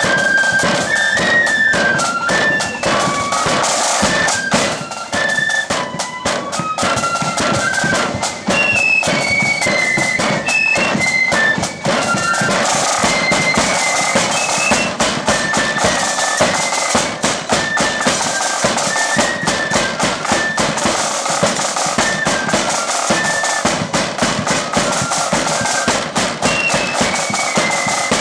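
Loyalist 'blood and thunder' flute band playing a march: massed flutes carry a high, stepping melody over a bass drum and rapid, dense drumming.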